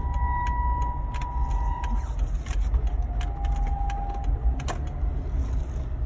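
A Jeep driving with a thin, steady squeal over the low road and engine rumble, with no brakes applied and the steering wheel held still. The squeal fades about two seconds in and comes back lower for a second or two, with scattered light clicks.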